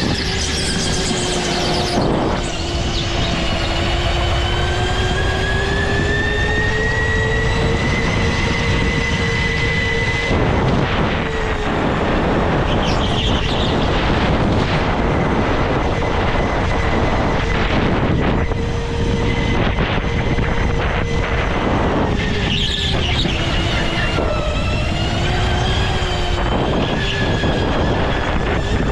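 Go-kart running at speed. Its pitch climbs through the first ten seconds, holds, drops about 22 seconds in and climbs again, over a steady rumble of wind and vibration.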